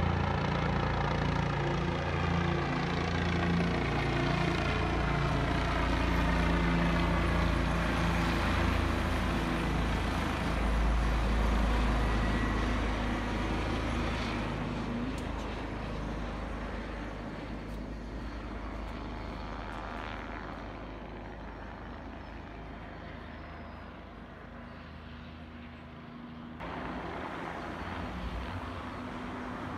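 A light helicopter flying over, its rotor and engine sound loudest in the first dozen seconds, then fading as it moves away, with a rise again near the end.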